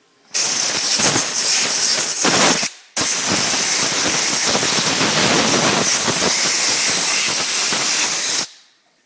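Two long blasts of pressurised gas hissing from a nozzle, the first about two and a half seconds long and the second about five and a half, each starting and stopping sharply.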